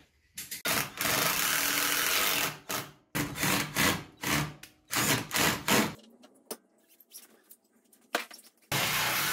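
Ryobi cordless drill driving screws into a wooden bench stretcher: one long run, then a string of short bursts as each screw is seated. A different steady noise starts near the end.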